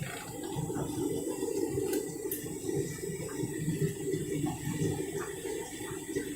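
Candy washing machine in its rinse, water running and splashing inside the drum.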